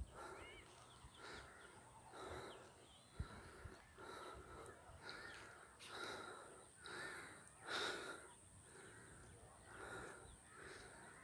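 A man breathing hard close to the microphone, a faint breath about once a second: he is out of breath from a steep uphill climb.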